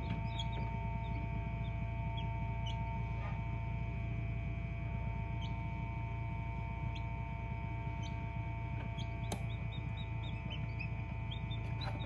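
Newly hatched chicks peeping inside an incubator: scattered short high peeps, more frequent near the end, over the incubator's steady hum.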